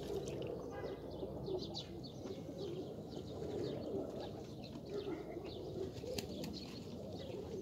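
Faint background bird sounds: low cooing with many short, high chirps scattered through it, and light rustling.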